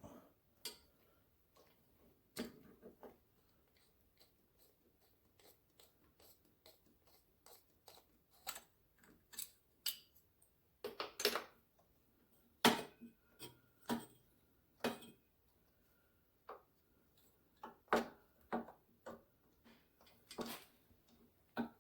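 Scattered light clicks and knocks of metal parts being handled as a carburetor is wiggled and worked loose from a three-wheeler's frame, irregular and spaced out, with a few louder knocks.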